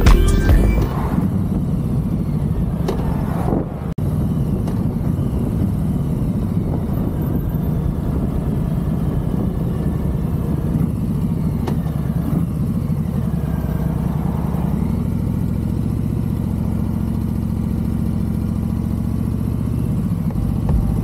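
2020 Harley-Davidson Street Bob's Milwaukee-Eight V-twin engine running steadily on the move, with a brief drop in level about four seconds in.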